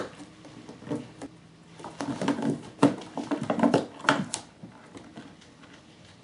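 Kittens scrambling over and inside a cardboard box: irregular scratches, taps and soft knocks of paws and claws on cardboard, with a couple of louder knocks about three and four seconds in.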